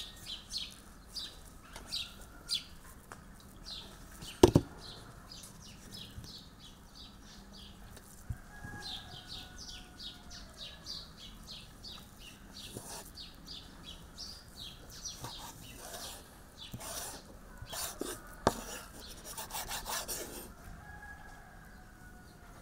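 Kitchen knife sawing through a piece of raw lamb fat on a wooden cutting board: quiet repeated scraping strokes, with a single sharp knock on the board about four and a half seconds in.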